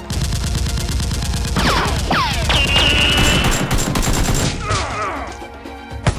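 Rapid automatic gunfire sound effects, a dense stream of shots with a few falling whistles mixed in, over background music; the firing thins out about five seconds in.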